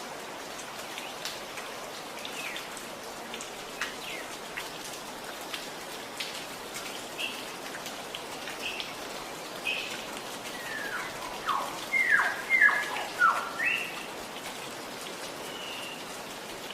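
Steady gurgling of running water with small ticks and drips, while birds chirp here and there; about two-thirds of the way through a bird gives a quick run of loud, falling calls.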